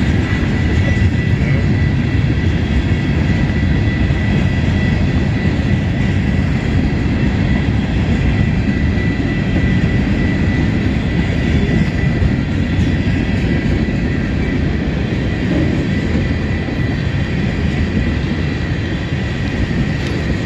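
Freight train cars rolling past close by, a mix of coil cars, open hoppers, a boxcar and tank cars, giving a steady heavy rumble of steel wheels on rail. A thin, steady high-pitched tone runs over the rumble.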